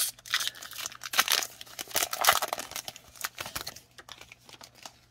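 Trading-card pack wrapper being torn open and crinkled by hand, a dense run of crackling that thins out after about three and a half seconds.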